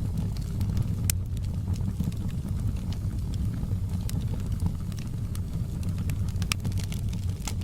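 Wood fire burning in a fireplace: a steady low rumble of flames with a few sharp crackles and pops spread through it.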